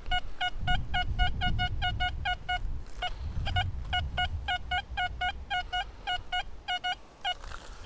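XP Deus II metal detector sounding a good signal on a buried target: a run of short, high-pitched beeps, several a second, with a brief pause about three seconds in.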